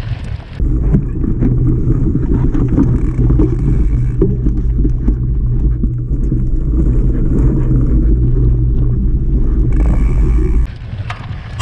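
Steady low rumble of wind buffeting and trail vibration on a rear-facing camera mounted on a mountain bike, as it rides a dirt singletrack. It starts abruptly just under a second in and cuts off near the end.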